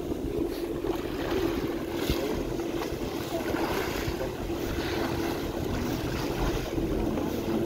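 A boat's engine running steadily under way, with water rushing and splashing along the hull from the bow wave, and wind buffeting the microphone.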